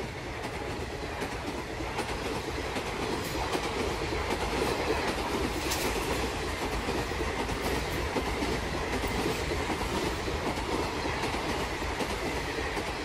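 Passenger coaches of a train rushing past at speed close by, a steady rush with the wheels clattering over the rail joints.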